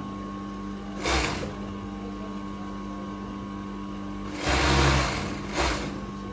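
Industrial overlock sewing machine stitching in three short runs: a brief one about a second in, then a longer run and a quick one near the end, over a steady electric hum.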